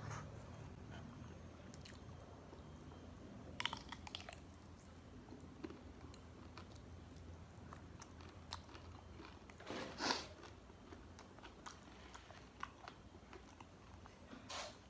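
Close-up mouth sounds of eating crispy fast food: steady chewing with scattered small crunches and a few louder bites, about four, ten and fourteen and a half seconds in, over a faint low hum.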